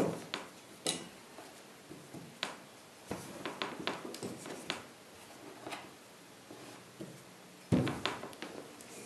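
Wooden rolling pin rolling out dough on a floured wooden board: scattered knocks and clicks of the pin against the board, with a louder knock near the end.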